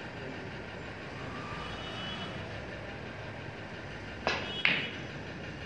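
Snooker shot: a sharp click of the cue tip striking the cue ball about four seconds in, then a louder click of the cue ball hitting another ball a third of a second later, over a steady background hum.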